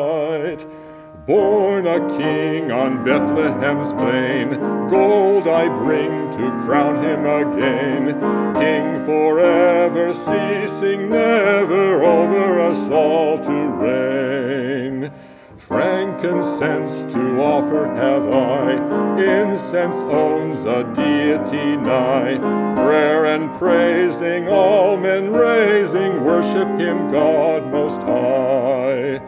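A solo singer with vibrato performing a Christmas carol to piano accompaniment, with short breaks between phrases about a second in and about halfway through.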